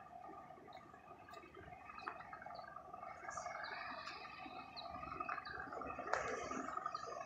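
Faint outdoor ambience: a steady drone of several held tones, with short high chirps and a single sharp click about six seconds in.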